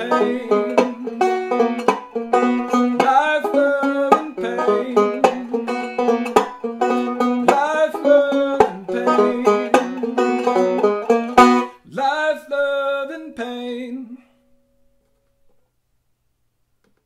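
Resonator banjo picked solo in a quick run of ringing plucked notes. Near the end a note slides up, then the last notes ring out and stop about fourteen seconds in, leaving near silence.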